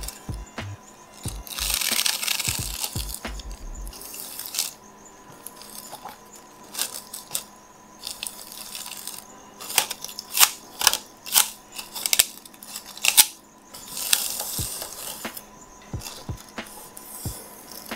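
Press'n Seal plastic wrap crinkling and rustling as it is stretched and pressed down over a clear plastic tub, with many short clicks and taps from the wrap and tub rim under the hands.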